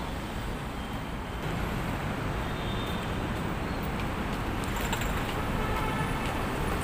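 Steady road traffic noise: a low, even rumble of motor vehicles.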